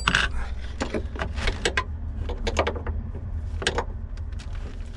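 Irregular metal clicks and knocks of a wrench working a nut welded onto a sheared lag motor-mount bolt, turning it out a little at a time.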